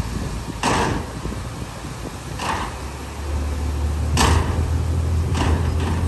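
Shantui bulldozer's diesel engine running with a low, steady drone that grows louder about three seconds in. Five short hissing sounds come through it.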